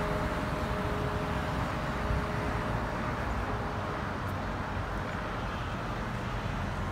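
Steady street traffic rumble, with the hum of the town hall clock bell's last stroke fading out over the first few seconds.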